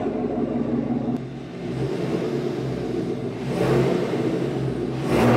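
Chevrolet Silverado's V8 running through a newly fitted AWE 0FG catback exhaust with quad tips, idling with a deep rumble. The throttle is blipped twice, about three and a half and five seconds in.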